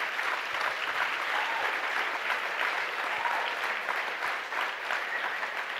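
Audience applauding: a steady, even spread of clapping that begins to ease off near the end.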